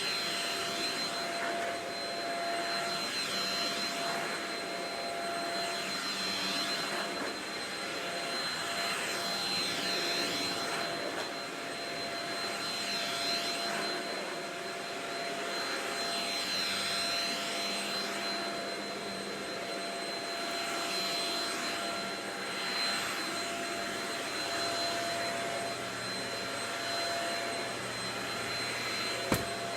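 Shark Rocket vacuum cleaner running steadily with a high whine, its tone shifting slowly every few seconds.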